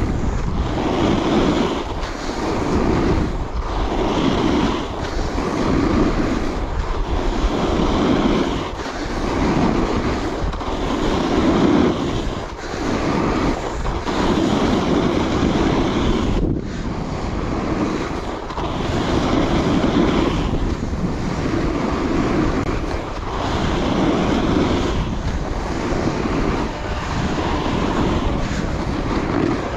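Coiler Nirvana alpine snowboard carving groomed snow, its edge scraping through each turn in a swell that comes back about every two seconds, over steady wind rushing across the microphone.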